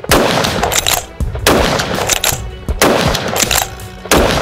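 Enfield Arms Genesis One .223 Remington rifle fired four times, about a shot every second and a half, each shot trailing off in an echo, over background music.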